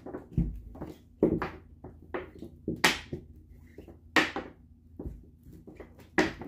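Thick rope rubbing and swishing as it is wrapped by hand around itself, a string of short irregular scrapes, with a dull bump about half a second in.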